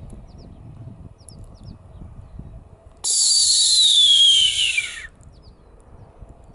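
Red-tailed hawk giving one harsh, raspy scream that slides downward in pitch. It starts about three seconds in and lasts about two seconds.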